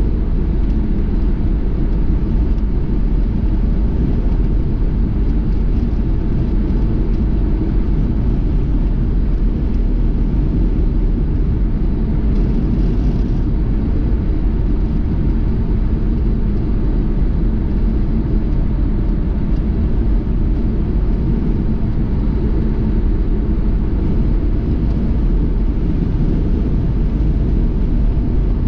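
Steady low rumble of a motor vehicle being driven: engine and road noise, even and unchanging throughout.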